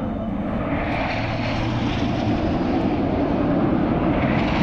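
Red Arrows' BAE Hawk jets flying over in formation: loud, steady jet noise with a low rumble, growing slightly louder through the pass.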